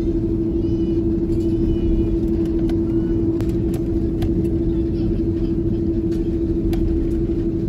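Airbus A330-200 passenger cabin noise while the airliner taxis: the jet engines and airflow make a steady low rumble with a steady hum on top, heard from inside the cabin.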